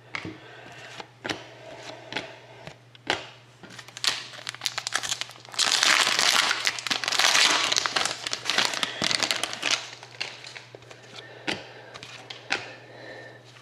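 Trading card pack wrapper crinkling as it is torn open and pulled off the cards, a dense rustle loudest for about three seconds in the middle. Before and after it, cards click and slide against each other as they are flicked through.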